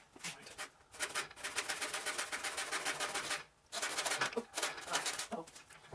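Small cordless reciprocating hacksaw cutting through a wooden tree limb, its fast strokes running in two spells with a brief stop about three and a half seconds in.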